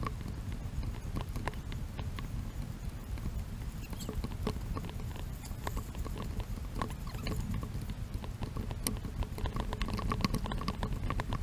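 A hiker's footsteps on a road, picked up by a body-worn camera: quick, irregular steps over a steady low rumble.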